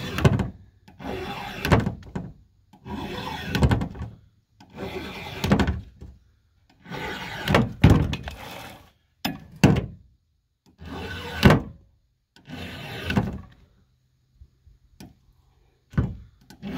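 Flat file rasping across the rakers (depth gauges) of a Husqvarna 572 XP chainsaw's chain, one full stroke per tooth. There are about ten strokes, each roughly a second long, with short pauses between them.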